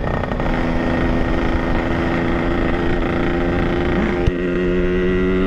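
Yamaha RX-King's two-stroke single-cylinder engine running at steady revs while the motorcycle cruises along. A short tap about four seconds in.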